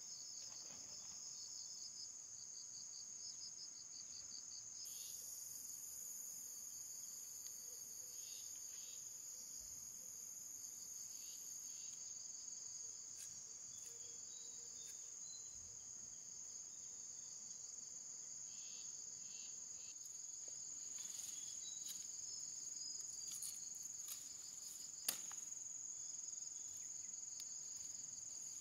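A steady high-pitched chorus of insects trilling, typical of crickets. A few faint taps sound through it, and there is one sharp click near the end.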